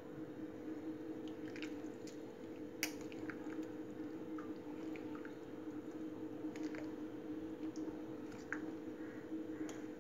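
Steel spoon stirring a runny semolina, yogurt and water batter in a glass bowl: wet squishing with irregular light clinks of the spoon against the glass. A steady low hum runs underneath.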